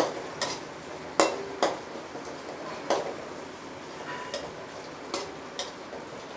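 Spatula clicking and scraping against a pan, irregularly, as chopped onions and tomatoes are stirred and sautéed in oil, over a faint steady sizzle.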